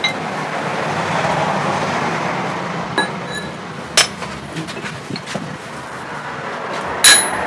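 Hammer blows on steel: a few light clinks, then near the end one loud ringing strike on the drift set in the red-hot eye of a forged adze head. A steady rushing noise runs underneath.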